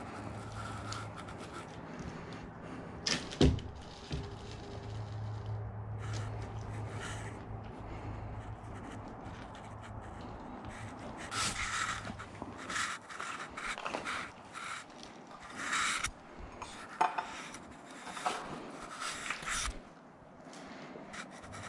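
Rustling and scraping of someone moving carefully on foot, with one sharp knock about three seconds in. A low steady hum runs under the first half and stops about halfway through.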